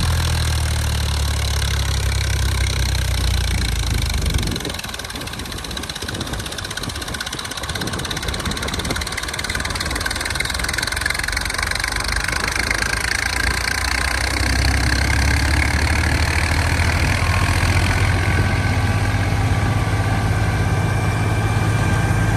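Tractor engine running a wheat thresher, with the thresher's steady noise throughout. The deep engine note drops away about four seconds in and comes back stronger and louder from about fifteen seconds in.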